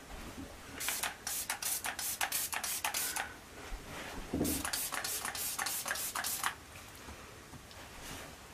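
Trigger spray bottle spritzing alcohol over the top of freshly poured cold-process soap in its mould, two runs of quick hissing sprays, to pop the air bubbles on the surface.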